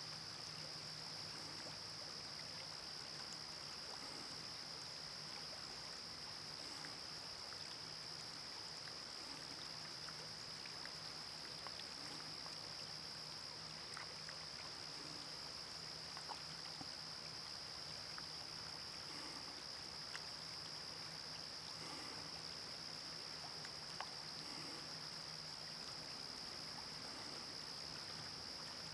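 River water running gently over stones in a shallow riffle, a soft steady wash, with a steady high-pitched tone on top and a few faint ticks.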